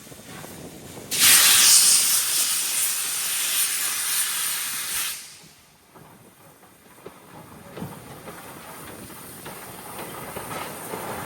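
Steam locomotive venting steam: a loud hiss starts suddenly about a second in, holds for about four seconds and stops. The rumble of a train then builds toward the end.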